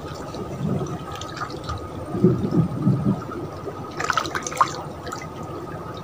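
Water sloshing and lapping against the hull of a small boat as it moves on a pond, with a short, sharper splash-like sound about four seconds in.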